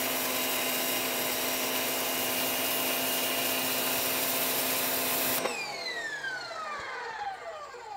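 Westinghouse ePX3000 electric pressure washer running, its motor humming under the loud hiss of a zero-degree jet of water blasting paint off concrete. About five and a half seconds in the trigger is released: the spray cuts off and the motor winds down with a falling whine.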